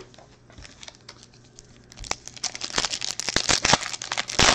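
Foil trading-card pack wrapper being crinkled and torn open by hand. A dense crackling starts about two seconds in, with the loudest rip near the end.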